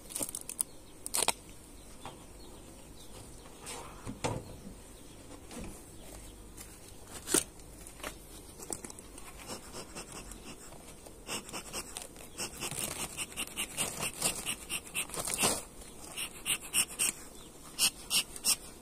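Wooden beehive being opened and handled: scattered sharp knocks, then from about eleven seconds in a quick run of clicks, several a second.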